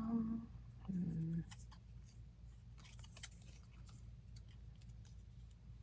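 Two short hummed "hmm" sounds from a voice, the second lower, within the first second and a half, followed by soft rustles and light clicks of cut-out paper pieces being handled.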